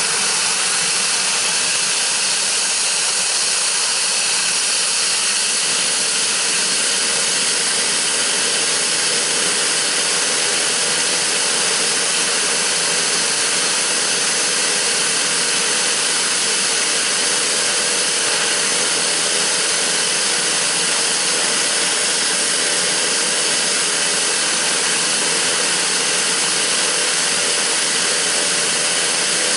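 Pilatus PC-12/47E's Pratt & Whitney PT6A turboprop engine running steadily: a loud, even turbine hiss with faint steady tones underneath.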